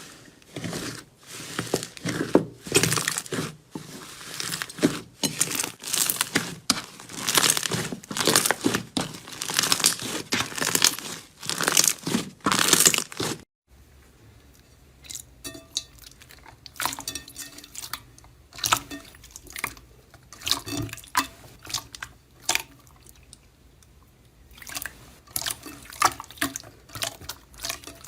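Close-miked slime being pressed and squished, a dense run of wet crackles and pops; about halfway through it cuts to another clip with sparser, softer pops and clicks.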